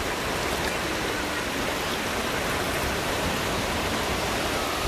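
Ocean surf breaking and washing in over shallow water at the shoreline, a steady rushing noise.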